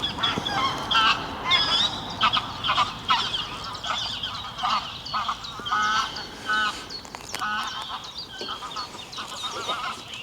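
Geese honking, many short calls in quick, overlapping succession.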